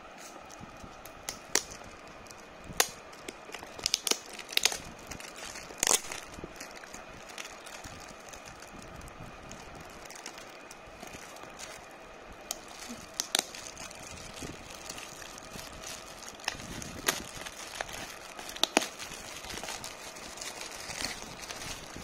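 Metallic foil gift wrap crinkling and crackling as it is handled and torn open, with sharp, irregular crackles scattered throughout.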